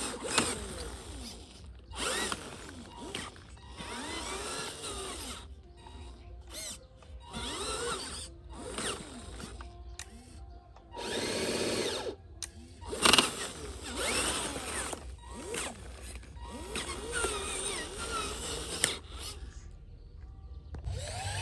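Small electric motors of radio-controlled construction models whining in repeated short bursts, their pitch rising and falling as the controls are worked, with brief pauses between runs and a few sharp clicks.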